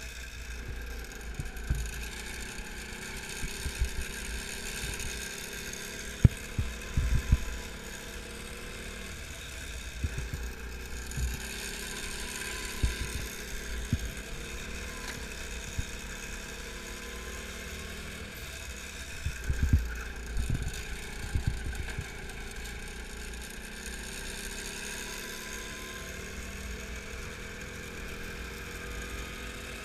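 Go-kart engine heard from on board, its pitch rising and falling through the lap, with wind rush and scattered low thumps on the camera, loudest clusters about six seconds in and again around twenty seconds in.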